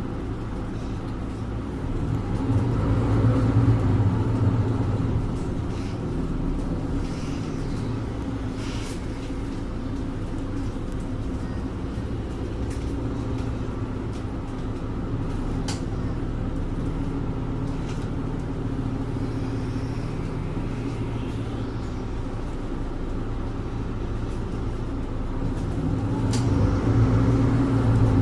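Mercedes-Benz Citaro 2G bus's OM470LA inline-six diesel engine running, heard from inside the bus, with a steady hum that grows louder for a couple of seconds a few seconds in and again near the end. A few short clicks and rattles sound over it.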